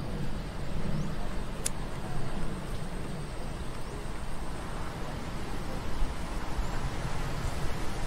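Steady outdoor background noise: a low rumble with a hiss over it, and one brief high click about a second and a half in.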